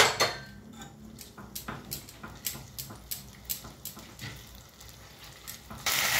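Spatula stirring ginger paste in oil in a nonstick frying pan: a string of light, irregular scrapes and taps against the pan. Near the end a loud, steady sizzle of the paste frying starts abruptly.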